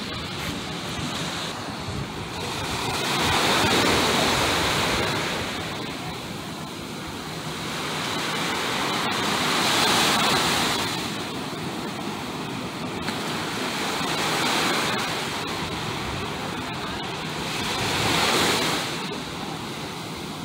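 Small waves breaking and washing up a sandy beach, the surf swelling and fading four times, about every four to six seconds.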